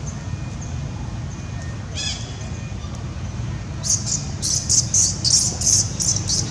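Fast run of high, scratchy chirping calls, several a second, starting about four seconds in, after one short squeaky call about two seconds in, over a steady low rumble.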